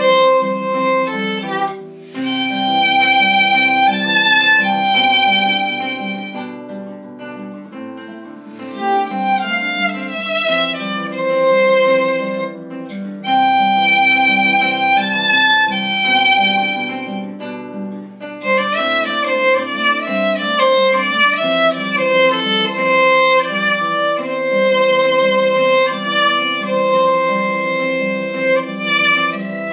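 Violin playing a slow melody with vibrato over a steady plucked-string accompaniment, softening for a few seconds partway through before swelling again.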